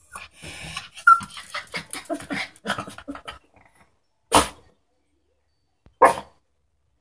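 Small dog 'talking': a string of short whines, whimpers and grumbles, one rising to a high whine about a second in, then two sharp single barks about a second and a half apart near the end. She is at the door asking to be let out.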